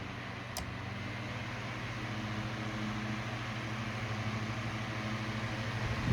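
Mainstays FN2006W 9-inch box fan running: a steady low motor hum under a rush of moving air, growing slightly louder toward the end. A single sharp click sounds about half a second in.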